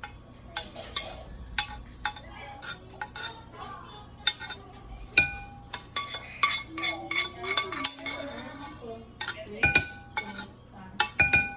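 Utensils knocking and scraping against dishes: many quick, irregular clinks, some of them ringing briefly like ceramic or metal struck lightly.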